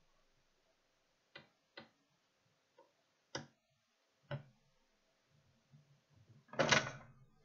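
Metal parts being handled as the stand of an HP all-in-one computer is unscrewed and taken off: four short, sharp clicks spread over the first few seconds, then a louder clatter lasting about half a second near the end.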